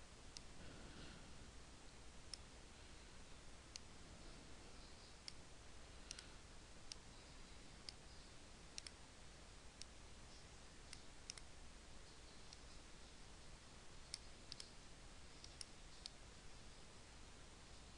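Faint, irregular clicks of a computer mouse, roughly one every second or so, over a faint steady hum.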